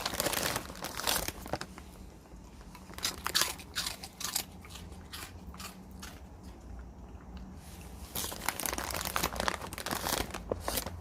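A dog biting and chewing Saewookkang shrimp crackers, with sharp crunches in bursts: near the start, a few seconds in, and again in the last three seconds.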